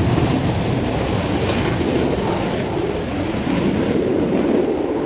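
Loud aircraft engine noise, a deep, steady roar at close range. The top end slowly thins, so it grows duller toward the end.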